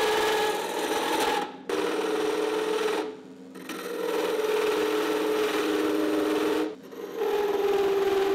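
A drill press spins a wooden knob blank while a flat steel blade is held against it, scraping and cutting the wood, a steady scraping hiss over the machine's hum. The sound stops briefly three times, about one and a half, three and seven seconds in.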